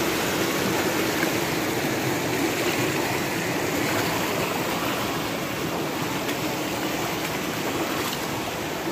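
Shallow rocky mountain stream running over and between stones: a steady rush of water that eases slightly toward the end.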